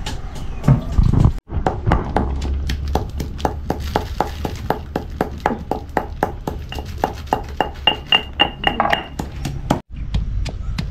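Steady rhythmic knocks of a hand tool striking food during kitchen preparation, about three a second, broken off abruptly about a second and a half in and again near the end.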